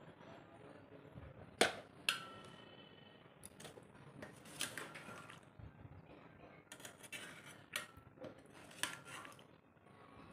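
Steel serving spoon clinking and scraping against the steel pot and the ceramic bowl as fish curry is ladled out: a scatter of sharp clinks, the loudest two close together about two seconds in, one of them ringing briefly.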